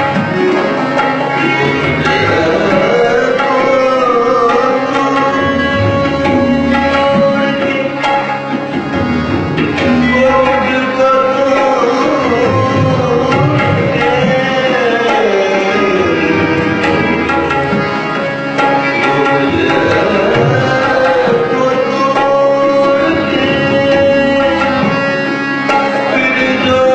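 Tabla playing a steady accompaniment of quick strokes, with a melody above it that slides up and down in pitch.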